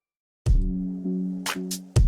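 Silence for about half a second, then background electronic music starts abruptly with a kick drum, sustained synth bass notes and crisp hi-hat hits.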